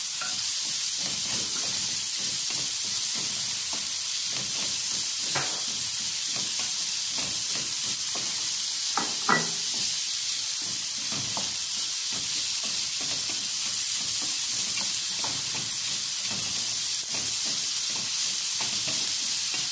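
Chopped onions and garlic sizzling in hot oil in an aluminium pan, with a wooden spatula scraping through them as they are stirred. Two sharper knocks come near the middle.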